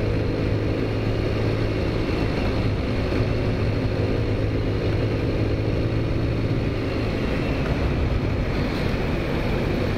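Taotao Zummer scooter's small four-stroke engine running at a steady cruising speed, its hum holding one pitch throughout, with road and air rush over it.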